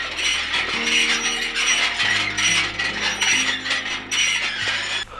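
A row of brass prayer wheels being spun by hand one after another, rattling and clattering on their metal spindles in a quick, uneven run of clicks.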